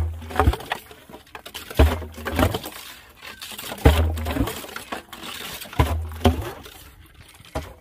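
Hand sludger boring for a hand pump: a steel drill pipe worked up and down inside a water-filled bore casing, giving a pair of knocks with a splash of water about every two seconds.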